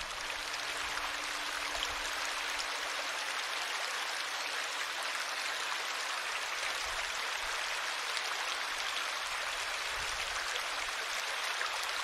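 Small woodland stream running over a low cascade between mossy rocks into a pool: a steady rush of water with fine splashing.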